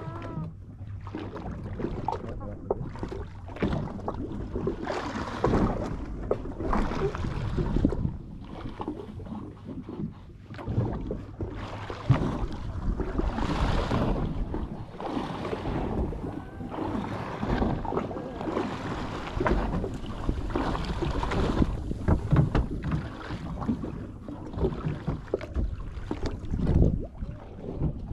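Wind buffeting the microphone on a fishing boat at sea, with water splashing against the hull in irregular surges over a low steady hum.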